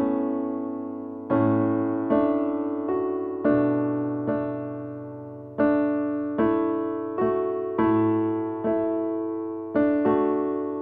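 Background music: slow, gentle solo piano, chords struck about once a second and each left to fade before the next.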